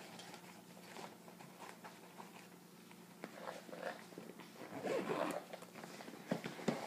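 Hands rummaging in a fabric gear bag: rustling of the bag and its contents, louder about five seconds in, with a few sharp clicks near the end.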